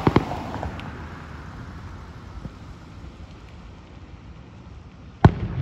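Aerial firework shells bursting: two sharp bangs close together at the start, then a fading crackle and a few faint pops, then one loud bang near the end.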